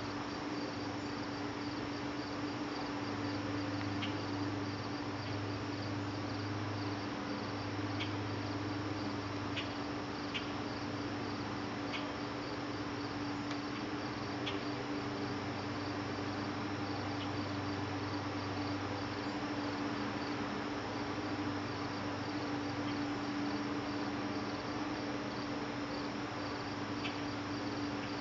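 Crickets chirping in a steady, fast pulsing trill, over a constant low hum.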